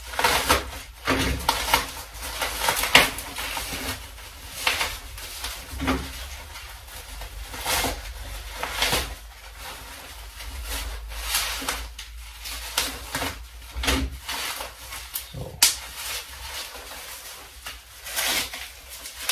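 Plastic packing wrap rustling and crinkling in irregular handfuls as small parts are unwrapped.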